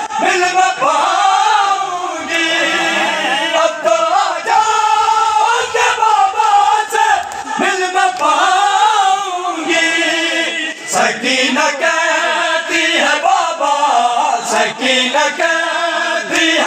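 A group of men chanting a noha, a Shia mourning lament, together in unison, in long sung lines that follow one another without a break.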